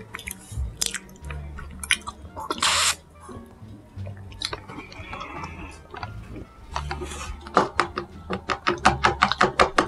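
A plastic straw stirred and jabbed around a plastic cup of iced boba milk tea, with scattered clicks, a short sucking slurp just before the middle, and a fast run of clicking taps, about five a second, near the end.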